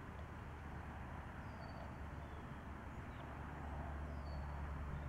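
Faint outdoor ambience: a low steady rumble that gets slightly louder about three and a half seconds in, with two brief high bird chirps, one early and one near the end.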